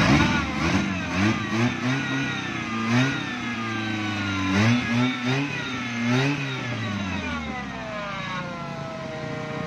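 A 1989 Nissan B12's carbureted four-cylinder engine runs after a no-start caused by a loose ignition fuse. It is revved in repeated quick blips, then the revs fall away and it settles toward idle near the end.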